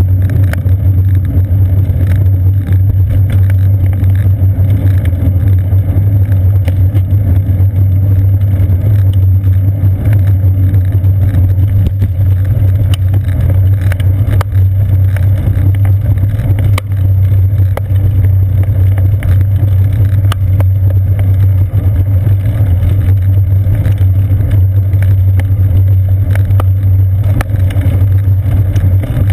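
Riding noise picked up by a seat-post-mounted GoPro Hero 2 in its housing on a moving bicycle: a loud, steady low rumble from wind and road vibration, with many small clicks and rattles.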